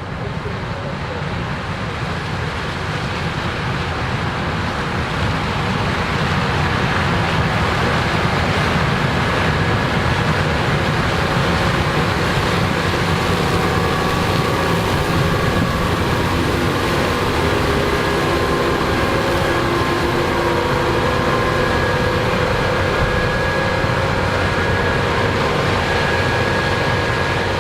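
Combine harvester running and harvesting corn, a loud steady machine noise with a high whine that grows louder over the first several seconds.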